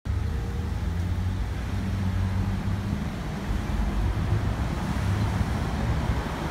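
Street traffic noise: a steady low rumble of passing and running vehicles.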